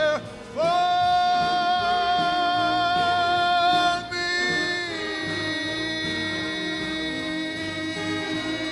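A singer holds a long high final note over orchestral accompaniment, then the voice drops out about four seconds in and the accompaniment sustains a closing chord.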